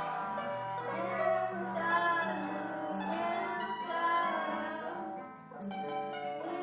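A band playing music: guitar and bass under a singing voice, with a brief lull about five and a half seconds in.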